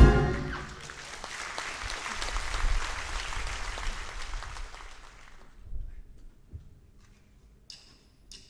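Audience applauding in a concert hall just as the big band's final chord cuts off, the clapping dying away about five seconds in. A few faint clicks follow near the end.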